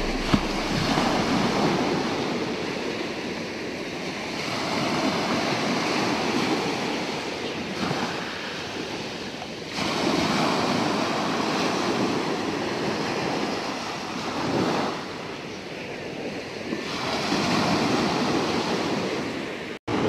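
Small sea waves breaking and washing up a fine-pebble shore, the surf swelling and fading every few seconds.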